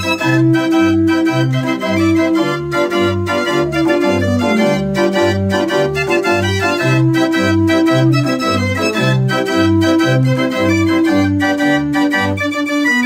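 Book-operated mechanical organ playing a tune read from a perforated cardboard music book: a sustained pipe melody over a steady oom-pah bass of about two notes a second.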